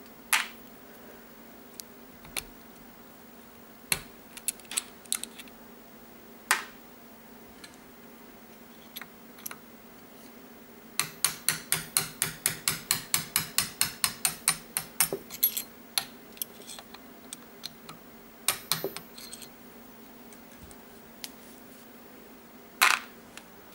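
Steel pin punch and small metal parts clicking against a Weihrauch air rifle's steel receiver tube. Scattered single clicks, then a quick run of about twenty light taps, roughly five a second, in the middle as the punch works in the receiver, and one loud click near the end.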